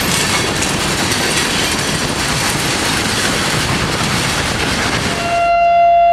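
Derailed freight cars rolling past close by, with dense, continuous clattering and grinding from their wheels and trucks. About five seconds in the train noise cuts off abruptly and a louder steady high tone takes over.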